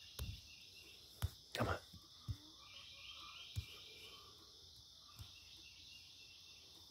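A steady, high-pitched insect chorus, with a few soft knocks in the first few seconds and one more about five seconds in.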